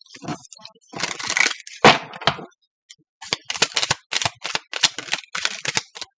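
A deck of cards being shuffled by hand. A short rustle comes first, then about halfway through a quick, uneven run of sharp snaps as the cards slap together, three or four a second.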